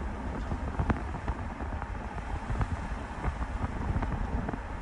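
Vehicle driving, with a steady low engine and tyre rumble and frequent small knocks and rattles from the bumps.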